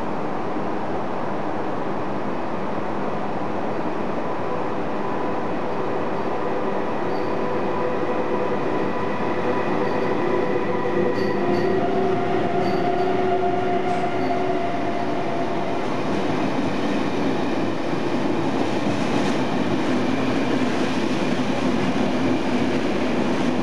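Kowloon–Guangzhou through train, an Re 460-type electric locomotive hauling double-deck coaches, running non-stop through a station at speed. A steady noise of wheels on rails carries faint whining tones, and the level rises slightly as the coaches pass.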